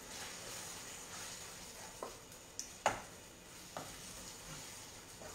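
Millet risotto sizzling in a frying pan as butter is stirred through it, with a few sharp knocks of the spoon against the pan, the loudest about three seconds in.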